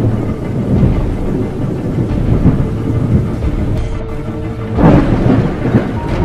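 Rolling thunder with steady rain, with a sudden louder crack of thunder near the end.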